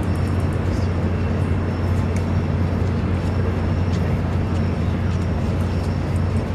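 Steady low hum and rumble of background noise, unchanging throughout, with faint rapid ticking high in pitch.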